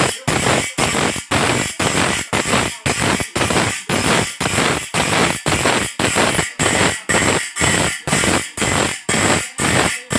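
Motor-driven grinding wheel sharpening the teeth of a wide band saw blade: a harsh grinding rasp about twice a second as each tooth is pressed against the wheel, with brief gaps between.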